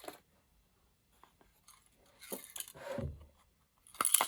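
Small metal watch parts rattling and clinking in their storage box as it is handled, with scattered clicks and a sharp clatter about four seconds in.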